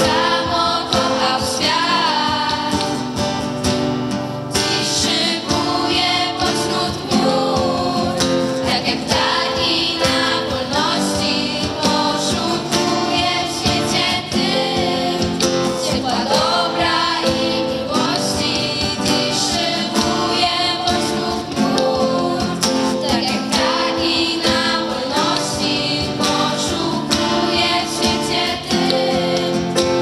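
A girls' vocal group singing a song in Polish, accompanied by acoustic guitar and electronic keyboard.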